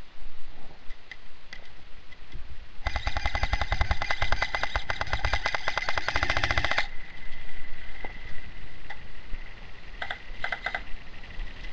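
Airsoft electric gun firing full auto: one long burst of about four seconds starting about three seconds in, its gearbox whining under the rapid clatter of shots, then two or three short bursts near the end.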